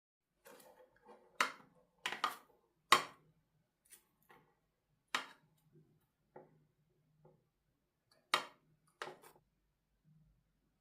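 Dishes and utensils clinking and knocking in a series of separate sharp clicks, several of them loud.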